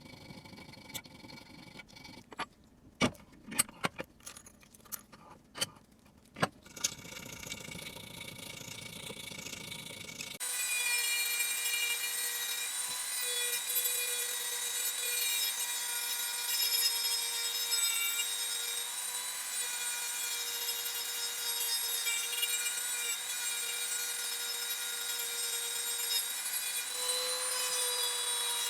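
A few sharp clicks, then about ten seconds in a small electric power tool starts and runs steadily with a high whine, working on the part.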